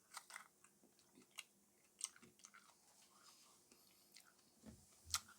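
Faint, close-up chewing of a raw T-Rex mustard superhot chili pod: soft crunches and wet mouth clicks scattered through, a little louder near the end.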